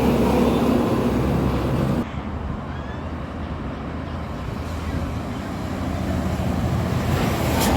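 Road traffic passing: vehicle engines and tyres, loud for the first two seconds, then dropping off suddenly and building again near the end, with a sharp click just before the end.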